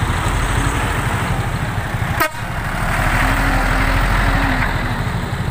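Diesel engines of a large bus and then a truck passing close by: a steady low engine rumble with road and tyre noise. The sound breaks off abruptly for an instant a little over two seconds in.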